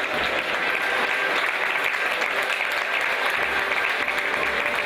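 Steady, dense applause of many people clapping.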